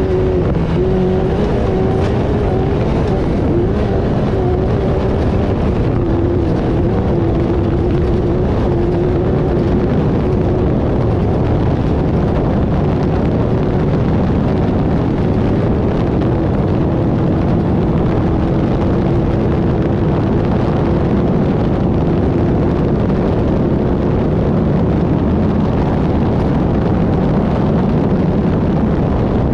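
Off-road race car driving at speed: its engine runs at a fairly steady, slightly wavering pitch under a constant loud rumble of driving noise.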